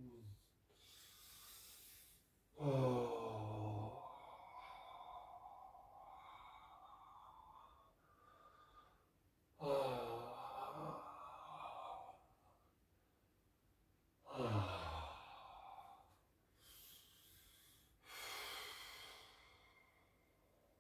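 A man breathing deeply and letting out three loud voiced sighs, each falling in pitch. They come near the start, around the middle and about two-thirds through, with audible breaths in between and a long unvoiced breath near the end.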